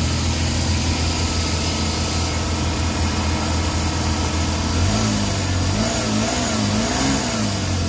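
Suzuki DA17 engine idling steadily, then its speed wavers up and down about three times near the end before settling. This is the rough, hunting idle with no fault code that is being diagnosed.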